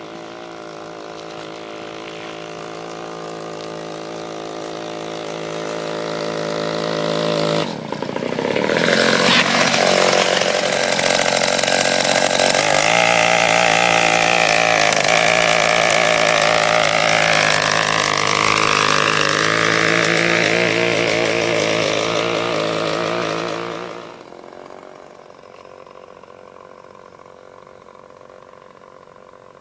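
A 53 cc two-stroke chainsaw engine drives a homemade go-kart. It runs and grows steadily louder for the first eight seconds or so. It then becomes loud, its pitch rising and falling, for about sixteen seconds, and drops away sharply to a faint drone.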